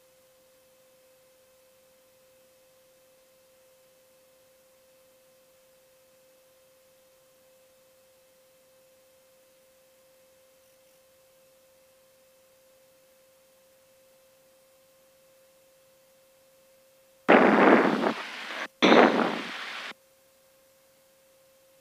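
A faint steady electrical tone near 500 Hz in the cockpit intercom recording, with no engine sound coming through. Then two short bursts of loud rushing noise about 17 and 19 seconds in, each switching on and off abruptly as the intercom or radio opens.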